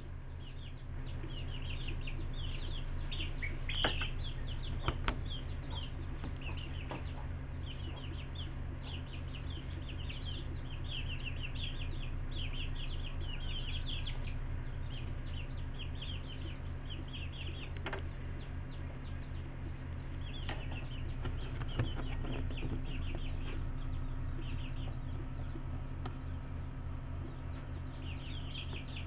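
Many chicks peeping throughout, short high chirps that slide downward, over a steady low electrical hum. A few sharp knocks come at about 4, 5, 18 and 22 seconds in.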